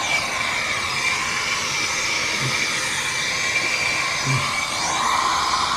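Plumber's gas torch flame hissing steadily against copper pipe, melting off drips of old solder. A faint high whistle sits in the steady hiss.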